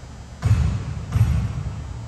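Basketball bouncing twice on a gym floor, the bounces about three quarters of a second apart.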